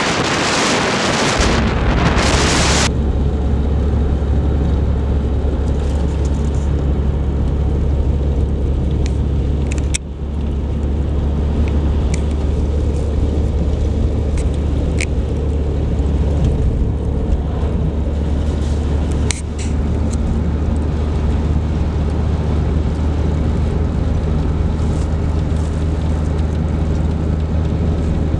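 Strong wind buffeting the microphone for the first few seconds. Then a steady low drone of a car's engine and tyres heard from inside the cabin while driving on a snow-covered road, with a few faint ticks.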